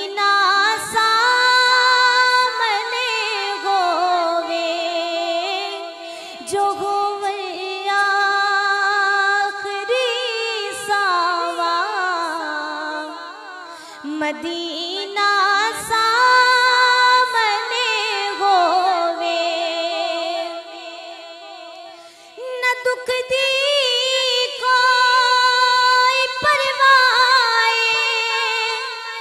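A woman singing a naat, a devotional song, unaccompanied, in long ornamented phrases with held, wavering notes and short breaths between lines.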